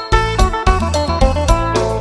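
Isan phin, the plucked Thai-Lao lute, playing a quick repeating lai phin dance melody over a steady beat of low drum hits and a held bass.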